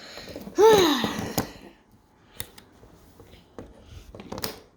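A child's brief wordless vocal sound, its pitch rising then falling, about half a second in; then a few faint sharp clicks from handling the multi-tool.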